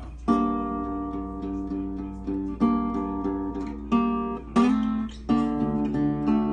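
Acoustic guitar strumming a handful of chords, each one left to ring out before the next.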